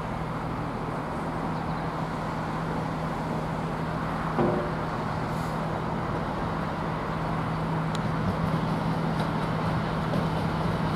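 Diesel train engine running with a steady low hum, growing slowly louder near the end, with one brief knock about four seconds in.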